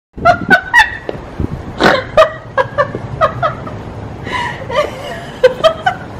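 A woman laughing hard in strings of short giggling bursts.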